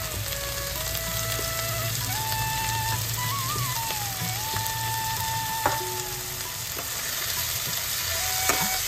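Food frying in hot oil in a pan with a steady sizzle while being stirred; a utensil knocks against the pan twice, once about halfway through and once near the end. A thin melody of held notes plays over it.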